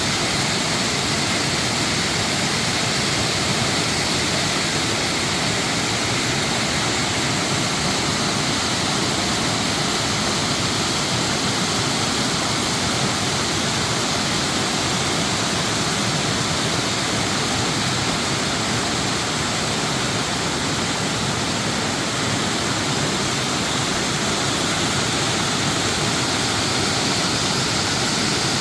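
Waterfall cascading over rock close by: a loud, steady rush of falling water that does not change.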